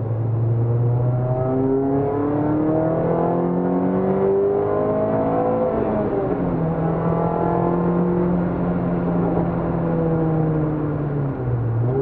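Peugeot 206 RC's 2.0-litre four-cylinder engine heard from inside the cabin at track speed. The revs climb steadily, drop sharply with a gear change about halfway through, climb slowly again, then fall away near the end as the car brakes.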